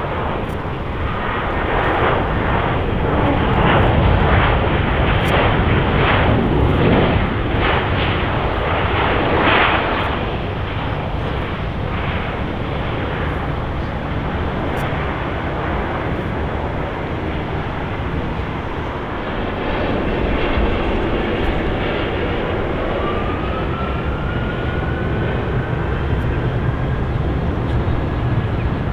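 Jet airliner engines: a loud rushing noise that pulses and is strongest in the first ten seconds, then a thin whine rising in pitch from about twenty seconds in.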